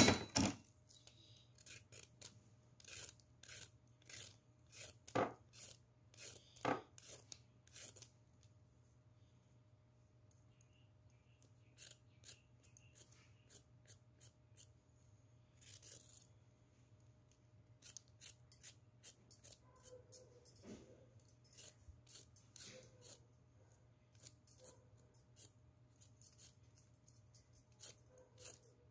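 A carrot being peeled: a run of short scraping strokes, about two a second, that pauses for a few seconds and then goes on more faintly. A sharp knock right at the start is the loudest sound.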